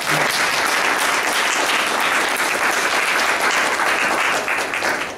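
Audience applauding at the end of a talk: a dense, steady clapping of many hands that tapers off near the end.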